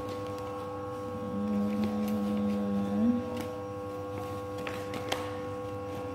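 Steady electrical hum, with a low tone held for about two seconds that rises at its end, and a couple of faint clicks about five seconds in.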